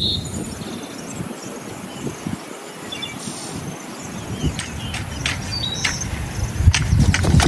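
Outdoor ambience: a steady high insect drone with a few short bird chirps. In the second half a run of sharp clicks and knocks, growing louder near the end.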